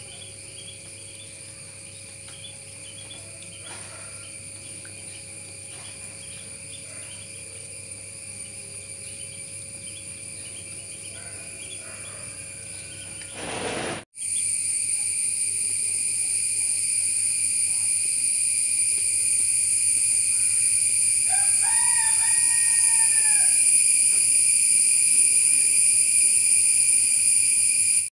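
A steady high-pitched insect chorus that steps up much louder about halfway through. A bird calls twice, briefly, about three quarters of the way in.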